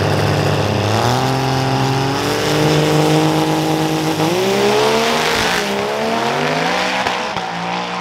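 Diesel drag-race pickup launching hard and accelerating down the strip, its engine pitch climbing and dropping back at each of several gear changes.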